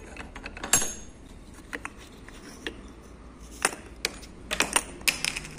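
Metal tools and parts clinking and knocking: scattered sharp metallic clicks, with a cluster near the end, as the bearing press and socket are taken off an A/C compressor pulley with its newly fitted bearing, held in a vise.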